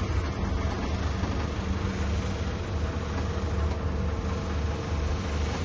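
Steady low machinery hum, even in level throughout, with a faint steady higher tone over it.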